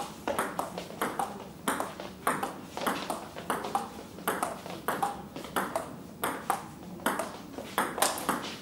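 Table tennis rally: the ball clicks off the bats and the table in a quick, even run of about three hits a second.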